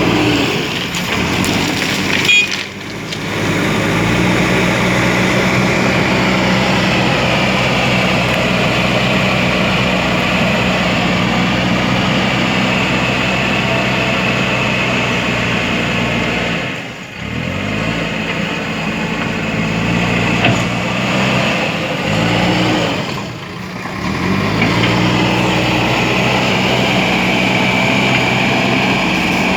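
JCB 3DX backhoe loader's diesel engine running steadily under working load, with a steady high whine over it. Three times the engine speed dips briefly and then climbs back.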